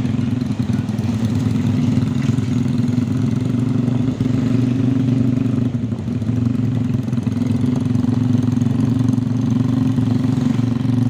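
Motorcycle engine idling steadily, a low even drone with no revving.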